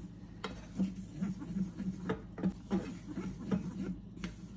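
Honey-butter glaze simmering in a small saucepan, with many small irregular pops and bubbles and soft scrapes of a wooden spoon stirring it. The bubbling is thickening the glaze.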